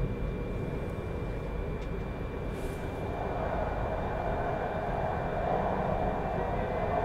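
Shinkansen bullet train accelerating away from a station, heard from inside the passenger cabin: a steady rolling rumble with a faint high tone above it, growing slowly louder from about three seconds in as the train picks up speed.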